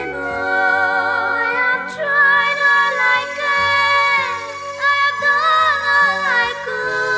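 Background song: a woman's voice singing slow, held, wavering notes with several vocal lines in harmony.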